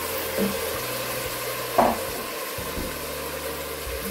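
Seared meat being stirred into browned onions frying in olive oil: a steady sizzle with two knocks against the pan, the louder just under two seconds in.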